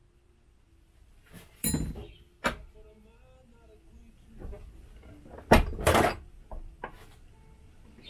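A hammer striking a copper busbar clamped in a bench vise: a handful of sharp blows at uneven intervals, the hardest pair about two-thirds of the way through. Each blow bends the bar cold, without preheating, towards a 90-degree angle.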